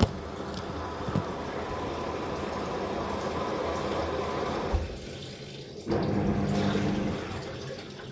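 Water running and sloshing in the tub of a 5.5 kg top-loading washing machine during its rinse cycle. There is a thump about five seconds in, then a short lull before the water sound picks up again.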